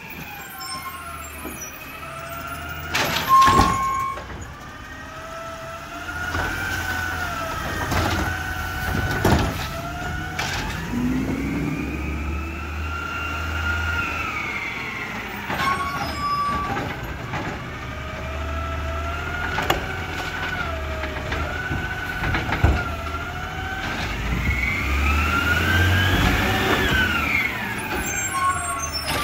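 Peterbilt 320 CNG garbage truck with a Dadee Scorpion automated side loader at work. The engine and hydraulics make a whine that rises and falls again and again over a low rumble, with several sharp bangs along the way.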